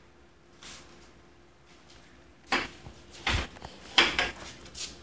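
A handful of short knocks and clatters, about five, starting about halfway in after a quiet first half.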